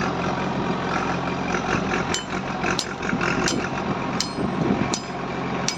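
A hammer striking metal, six ringing blows about every 0.7 s starting about two seconds in, over the steady running of an idling engine.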